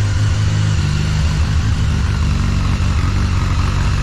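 Honda Blackbird CBR1100XX inline-four idling through a Black Widow aftermarket exhaust, just after starting. It is a steady, loud, deep idle. The owner judges the engine to be running too rich.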